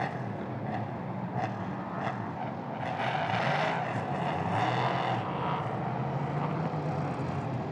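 LMP3 prototype race cars' Nissan V8 engines running, growing louder from about three to five seconds in as a car passes close.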